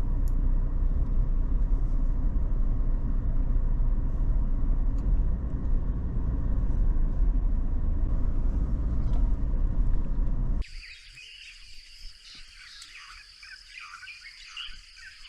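Steady low rumble of a car driving on a road. About ten and a half seconds in it cuts off abruptly to a steady high-pitched insect drone with faint scattered chirps.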